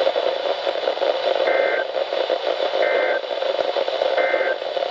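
Three short, identical warbling data bursts, about a second and a half apart, over the steady hiss and static of a weak, long-distance weather radio signal. These are the Emergency Alert System end-of-message (EOM) codes that close the alert.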